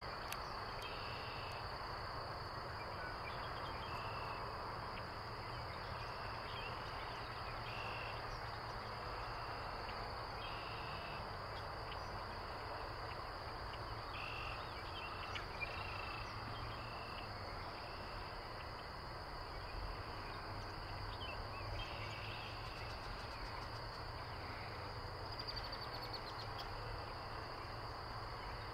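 Insects droning in a steady high tone, with short bird calls repeating every second or two over a steady low background noise.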